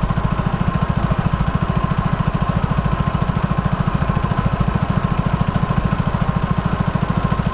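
Small boat motor running steadily at trolling speed, a fast, even low putter with a faint steady whine above it.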